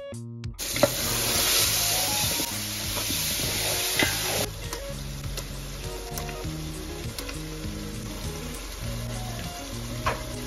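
Meat and potatoes sizzling in hot oil in a large pot. The sizzle starts loud about half a second in and settles a little after about four seconds, with a few knocks of a stirring spoon against the pot. Background music plays underneath.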